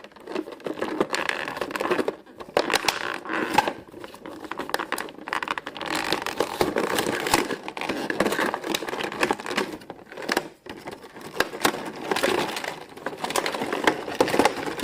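Toy kitchen playset being unpacked from its box: continuous rustling and crinkling of packaging, with many small clicks and taps.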